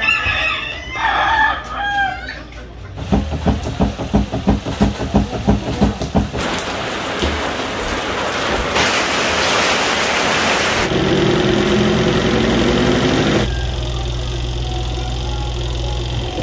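A rooster crows near the start. Then come a run of quick, even knocks, and a long stretch of steady rushing noise that shifts abruptly several times before dropping to a low hum.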